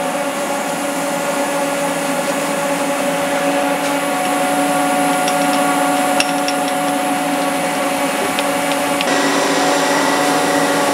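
Steady machine hum with several whining tones, a higher tone joining about nine seconds in. Over it come a few light metal clinks as a steel machine vise is worked and an aluminium block is set into it.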